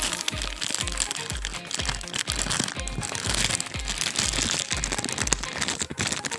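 Background music with a steady bass beat about twice a second, with plastic packaging crinkling as small fishing-tackle packets are handled and opened.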